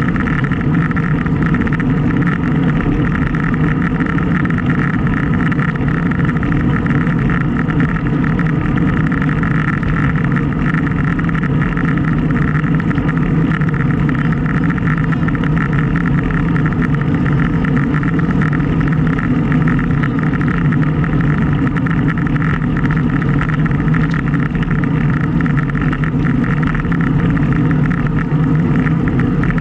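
Steady wind and road noise from a moving bicycle, with wind on the camera's microphone.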